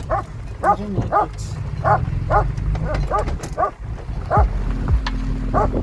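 Dog barking in a quick run of short barks, about two a second, over the low steady hum of the pickup's engine.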